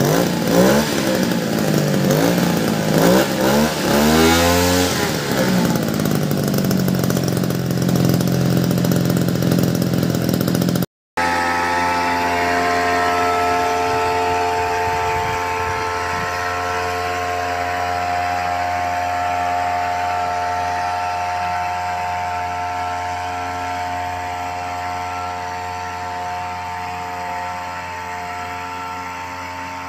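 Small petrol engine of a backpack power sprayer running after a carburetor repair for a no-start problem. For the first few seconds it is revved up and down several times. After a brief cut it runs steadily at high speed while spraying, slowly getting quieter.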